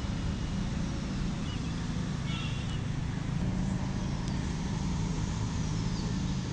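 Steady low engine rumble, with a brief high chirp about two and a half seconds in.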